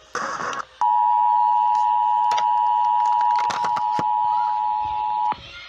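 Emergency Alert System attention signal: a loud, steady two-tone chord held for about four and a half seconds, starting about a second in and cutting off abruptly. It announces that an emergency alert message follows. A brief burst of noise comes just before it.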